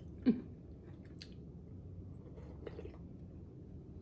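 A person chewing food, with one short, falling sound about a third of a second in and a few faint clicks after it.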